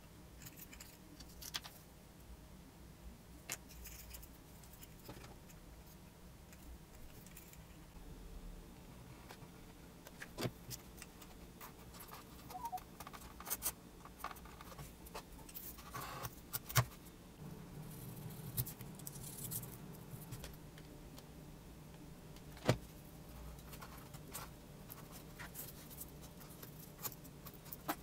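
Faint handling sounds of small-part assembly: scattered light clicks, taps and short scrapes as a steel wire pushrod is worked through a brass tube and a plastic clevis in a foam-board fuselage, with two sharper clicks past the middle.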